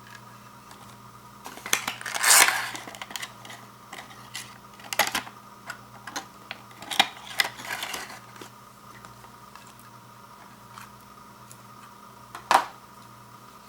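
Hands handling the retail packaging of a battery-powered LED light strand: scattered sharp clicks and short bursts of plastic crinkling, the loudest a rustle about two seconds in and a click near the end, over a faint steady hum.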